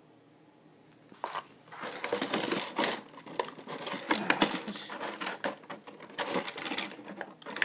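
Clear plastic blister tray crackling and clicking as Beyblade parts are pried out of it by hand, a dense run of irregular clicks that starts about a second in.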